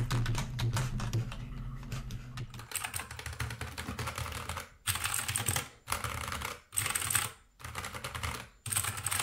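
Typing on a Keychron mechanical keyboard: quick clicks of the key switches, running densely at first and, about halfway through, breaking into bursts of rapid keystrokes about a second long with short pauses between them.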